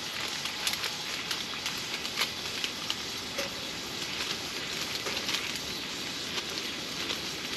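Wood fire burning in a Camp Chef Alpine XL tent woodstove: a steady hiss with scattered small crackles and ticks.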